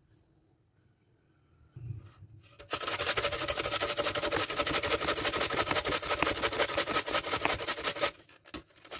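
Raw white radish being grated by hand on a stainless steel grater: fast, even rasping strokes, several a second, starting about three seconds in, with a brief pause near the end before they resume.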